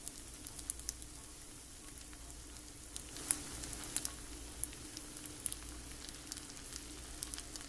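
Cooking oil sizzling in a black skillet under pasta, sausages and shrimp: a steady soft frying hiss with scattered sharp pops and crackles.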